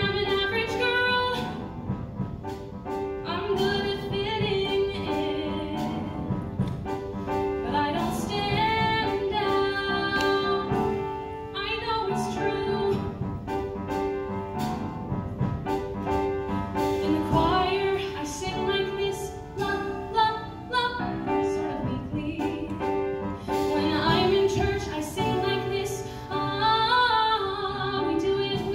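Woman singing a solo song into a microphone, in phrases with short breaks, accompanied by an upright piano whose sustained chords carry on between the phrases.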